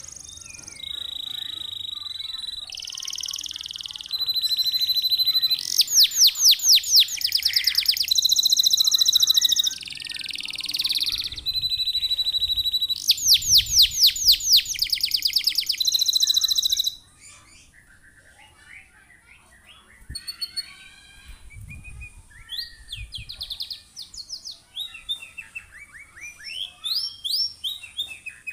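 Domestic canary singing a long, loud song of held whistles, buzzy rolls and fast trills of rapidly repeated notes; about 17 seconds in it drops to softer, scattered short chirps and twitters.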